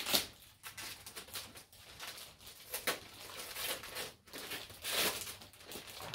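Wrapping paper rustling and tearing as a present is unwrapped, in a run of short scratchy bursts; the loudest come at the start, about three seconds in and about five seconds in.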